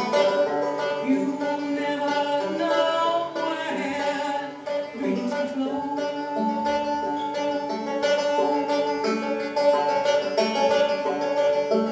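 Banjo picked in a steady run of notes, with a woman singing along over it during the first few seconds, then banjo alone.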